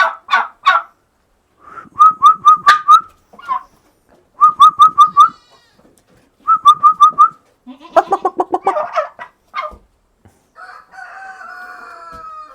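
Domestic turkeys calling: three quick runs of four or five short yelping notes, then a rattling gobble about eight seconds in, and a softer drawn-out falling call near the end.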